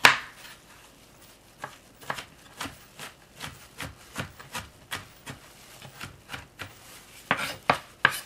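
Chef's knife roughly chopping onion on a wooden cutting board: a sharp knock at the start, then a run of light knocks about two a second, louder near the end.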